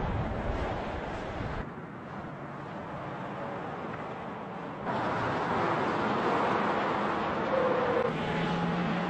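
Steady rushing vehicle noise, which drops abruptly about two seconds in and jumps back up about five seconds in.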